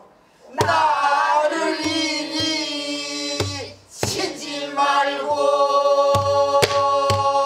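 A female pansori singer sings a slow, drawn-out phrase in jinyangjo rhythm, her voice holding and bending long notes. Several strokes on a buk barrel drum fall under the singing.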